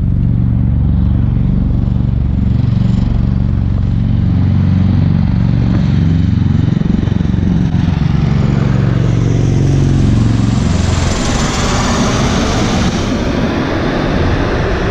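Two V-22 Osprey tiltrotor aircraft flying low overhead: a loud, deep rotor drone that slides down in pitch as they pass, giving way about ten seconds in to a broad rushing roar.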